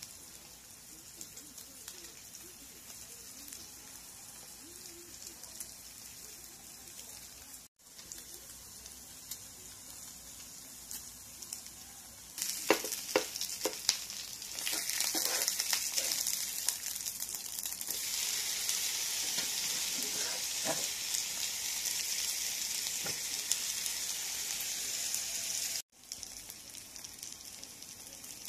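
Okonomiyaki frying on a hot plate with a steady sizzle. A few sharp clicks come about halfway through, then the sizzling turns much louder and denser for about ten seconds before it drops back to a soft hiss.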